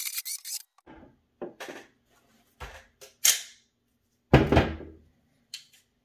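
Cordless drill whining as its bit grinds down the head of a steel pivot pin on a drum pedal footboard, cutting off about half a second in. Then about six separate knocks of a brass hammer driving the pin out, the loudest a little past the middle with a short ring.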